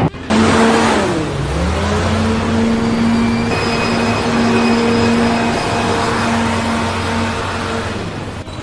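An engine running at steady speed over a loud rushing noise. It briefly drops in pitch and picks back up about a second in, then holds a constant hum.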